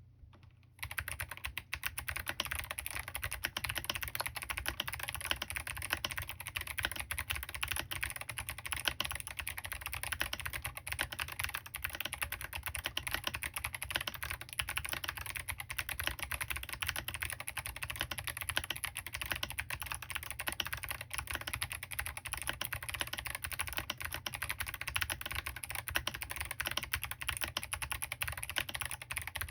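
Continuous rapid typing on a Smurve80 mechanical keyboard with Kailh Box Jade clicky switches, lubed with Krytox, Signature Plastics SA keycaps and an aluminium plate with no foam: a dense run of sharp key clicks, starting about a second in.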